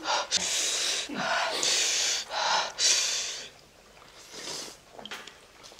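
A person drawing a run of sharp, hissing breaths through the mouth against the burn of very spicy food. It goes quieter after about three and a half seconds, leaving a few small mouth clicks.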